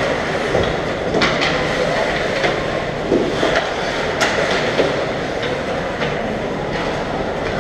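Ice hockey play in an echoing rink: a steady din of skates on the ice and voices, with sharp clacks of sticks and puck several times, the loudest about four seconds in.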